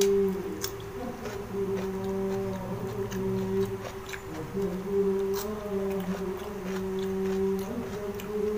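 Close-up eating sounds: scattered sharp clicks of chewing and lip smacks as fried catfish and rice are eaten by hand. A steady low hum runs underneath.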